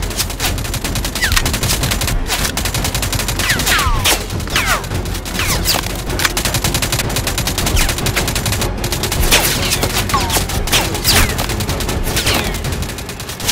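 Sustained rapid gunfire from several guns at once, a dense fusillade of overlapping shots with no pause, laid over with short falling whistles. This is an action-film sound-effects mix.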